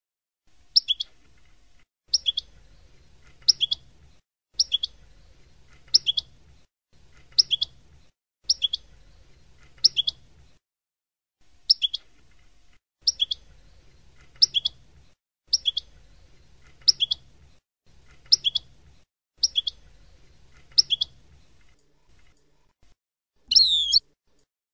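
European goldfinch singing in the Palestinian 'Abu Khalil' song style, a tutor recording for teaching young goldfinches: a short high double note repeated about every second and a half, with one brief pause midway, then a longer burst of rapid twittering glides near the end.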